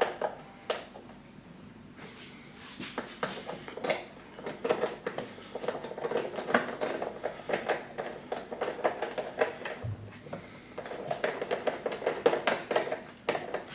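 Socket wrench tightening screws on a lawnmower's battery mount: runs of quick metallic clicks and clinks, in two bursts with a short pause about ten seconds in.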